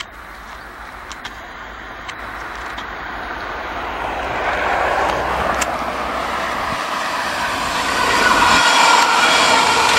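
Munich S-Bahn class 423 electric multiple unit approaching on the track, its running noise growing steadily louder as it nears.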